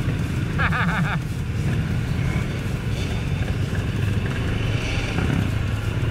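Suzuki King Quad 750 ATV's single-cylinder engine running steadily while the quad is ridden.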